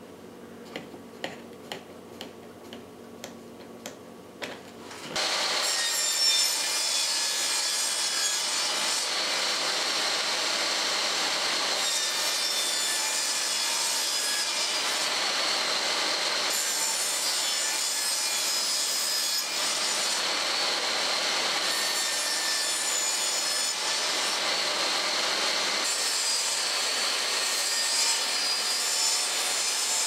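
A few light knocks of wood being handled, then about five seconds in a table saw switches on and runs steadily, cutting wooden birdhouse side pieces on a crosscut sled.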